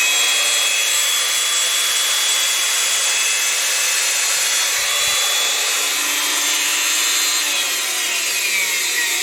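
Vintage Black & Decker 9411 band saw's variable-speed motor running steadily with a whine, its pitch falling in the last couple of seconds as it slows.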